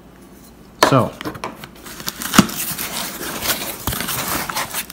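Cardboard shipping box being opened by hand: flaps pulled back and rustling, with scraping and a few sharp knocks against the cardboard.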